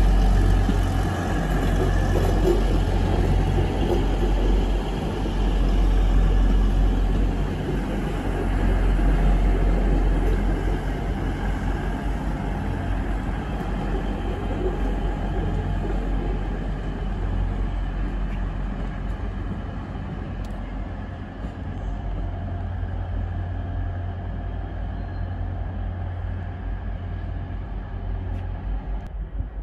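East Midlands Railway intercity diesel multiple unit running past on the far line: a steady low engine rumble that slowly fades as the train draws away.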